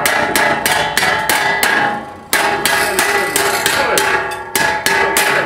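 Hammer beating on steel, about four ringing blows a second, with a short pause about two seconds in.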